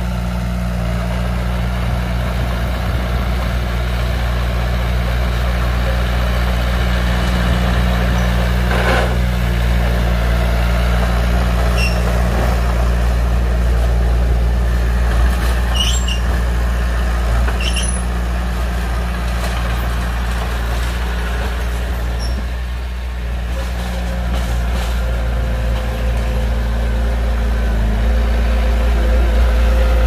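Heavy diesel engines of a bulldozer and dump truck running steadily, with a few short clanks and squeaks. The engine sound dips briefly about three-quarters of the way through, then picks up again.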